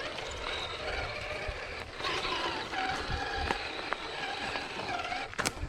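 Traxxas TRX-4 Sport RC crawler driving over rocks, its electric motor and gears whining and shifting in pitch with the throttle, with scattered small clicks and a sharp clack near the end.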